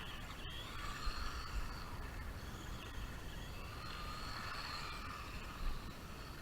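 Small electric RC drift truck driving, its motor and gears whining, the pitch swelling and fading twice with the throttle.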